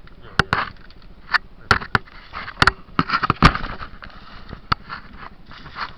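Footsteps crunching through dry leaf litter, with sharp irregular cracks of twigs and sticks snapping underfoot.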